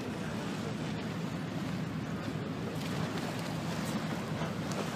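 Choppy sea washing and splashing against a rocky shore, with wind rushing on the microphone: a steady rushing noise without any clear tone.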